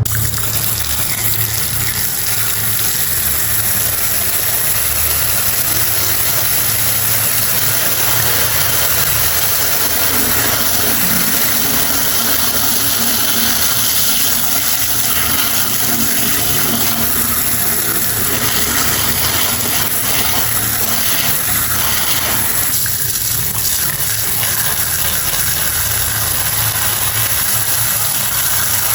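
A small pump motor running steadily while water sprays out in a constant hiss, as in washing down a model car.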